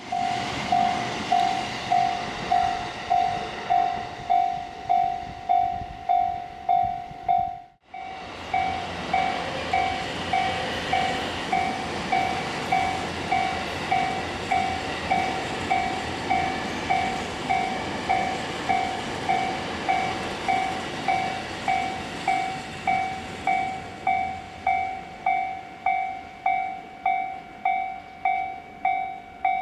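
Japanese railway level-crossing warning bell ringing steadily, about three electronic dings every two seconds, over the rumble of a train passing through the crossing. The train noise dies down near the end while the bell keeps ringing. Everything cuts out briefly about eight seconds in.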